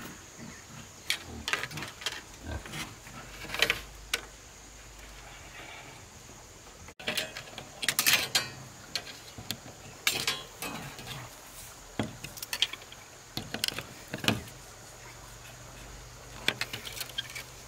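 Irregular knocks and clatter of hand work, sharp single strikes every second or so with short clusters of rattling.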